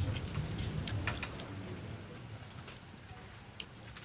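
Quiet hand-eating sounds: fingers picking at and mixing rice on a steel plate, with scattered soft clicks and ticks over a low steady hum.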